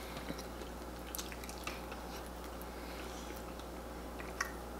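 Close-miked eating sounds: wet chewing and smacking of food being eaten with the hands, with small squishy clicks throughout. One sharp click near the end, over a low steady hum.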